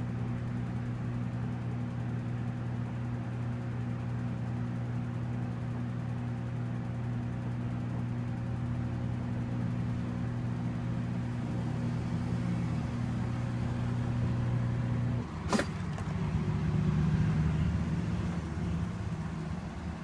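Danby DWM17WDB portable top-load washer on its spin cycle: a steady motor hum with the drum spinning. About fifteen seconds in the hum cuts off with a sharp click, and a louder, rougher rumble follows for a few seconds as the drum slows to a stop.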